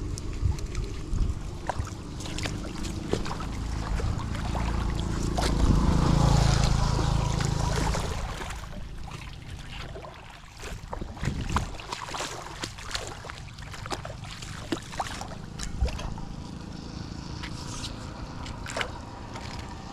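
Floodwater sloshing and gurgling as it drains into a street drain, with scattered sharp clicks. Wind buffets the microphone in a low rumble that swells about four to eight seconds in.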